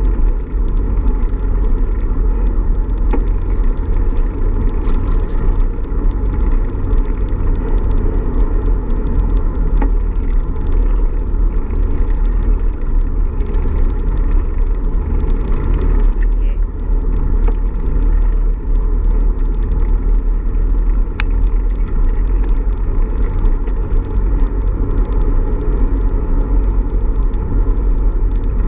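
Steady low rumble of wind buffeting the microphone of a camera riding on a moving bicycle, mixed with road noise from the ride.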